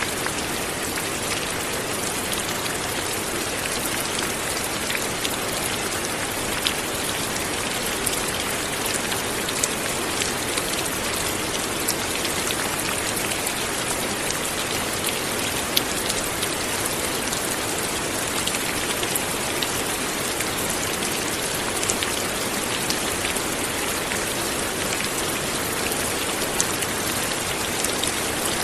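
Light rain falling steadily, an even hiss with scattered individual drops ticking on surfaces.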